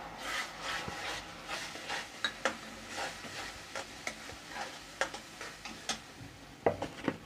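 A metal spatula stirring and scraping tomato purée through a fried onion and besan masala in a metal kadhai, with the purée sizzling in the hot oil. There are many short scrapes against the pan and a few louder knocks near the end.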